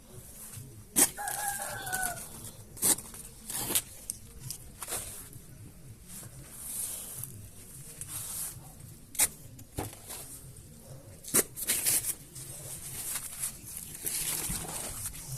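A hen or rooster gives a short call about a second in, over a series of sharp snaps and rustles.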